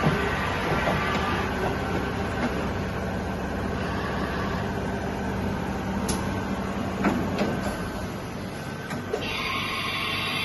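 Kasuga Q-600G CNC vertical milling machine running, a steady mechanical hum with a few sharp clicks. A hiss joins about nine seconds in.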